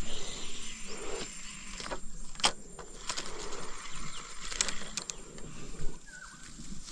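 Rustling of tall grass and a few sharp clicks from handling a spinning rod and reel.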